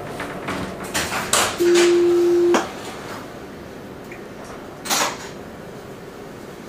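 A single steady electronic beep, about a second long, inside a Luas tram halted at a stop, after a few clicks and knocks. A short burst of noise comes about five seconds in.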